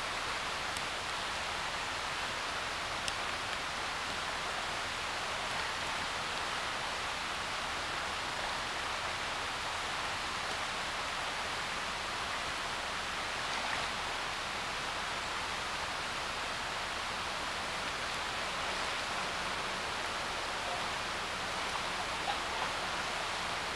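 Mountain river rushing steadily over rocks: a constant, even water noise with a strong current.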